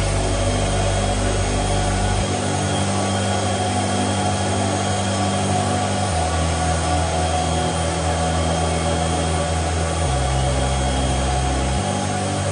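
Loud, steady whirring of ASIC mining machines' cooling fans and large air-cooler fans running together, with a steady high whine on top. The low hum shifts abruptly a few times.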